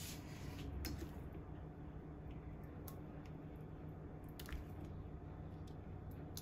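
Thick beef halim being ladled from a pan into a terracotta pot: faint soft squelching plops of the porridge, with a few light clicks of the ladle against the pot and pan.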